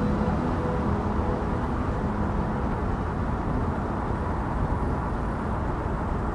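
Car driving noise: a steady low rumble of tyres and engine on the road, with the last held notes of music fading out in the first second.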